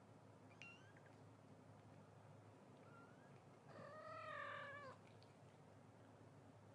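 A cat gives one drawn-out meow about a second long, a little past halfway, falling slightly in pitch as it ends. A brief faint squeak comes shortly after the start.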